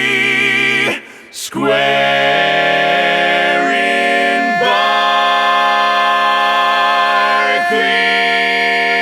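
Multitracked male barbershop quartet harmony sung a cappella, all four parts by one tenor, holding long close-harmony chords. The chord breaks off briefly about a second in, then moves through several chord changes, with one long held chord in the middle.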